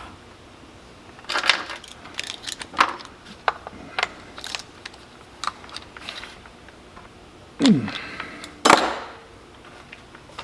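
Irregular small metal clicks and clinks from hands and a tool working the bar and chain of a Stihl MS193T chainsaw while the new chain's tension is set, with a couple of louder clacks late on.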